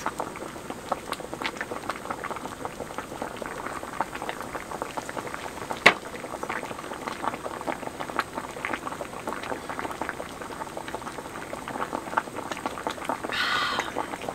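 Pot of water boiling steadily, a dense bubbling crackle of small pops, with one sharp click about six seconds in.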